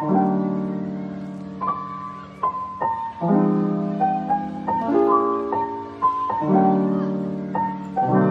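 Background piano music: slow, sustained chords struck about every second and a half, with a melody picked out above them.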